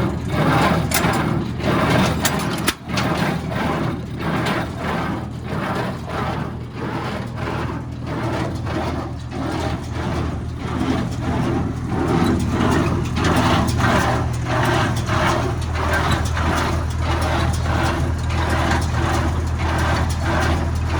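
John Deere 336 square baler running off a tractor's PTO, its plunger knocking in a steady rhythm of about one and a half strokes a second over the constant hum of the tractor engine.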